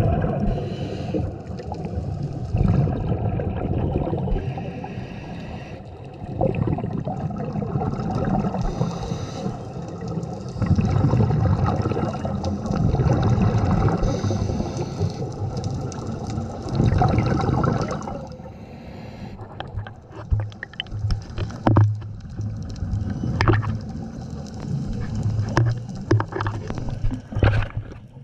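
Scuba regulator breathing heard underwater: long surges of exhaled bubbles rumbling and gurgling, separated by brief lulls. After about 18 seconds it grows quieter, with scattered sharp clicks and knocks.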